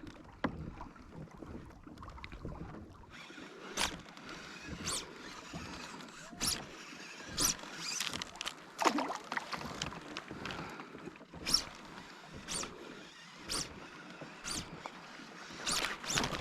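Fly line being stripped in by hand on a fly-fishing retrieve: a series of short swishes, roughly one a second, starting about four seconds in.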